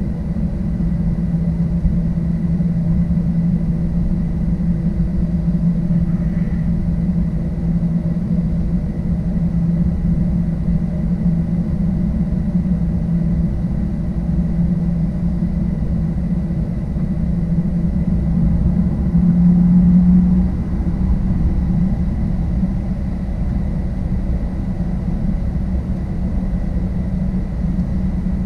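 Cabin sound of a Boeing 737-800 taxiing, heard from a seat near the wing: its CFM56-7B turbofans at low taxi power as a steady low hum and rumble, with a faint steady high tone. The hum swells briefly about twenty seconds in.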